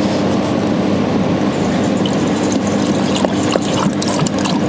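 Purified water pouring steadily from a plastic jerrycan through a funnel into the water chiller's fill port, with a wavering tone running through the pour: the chiller tank being filled.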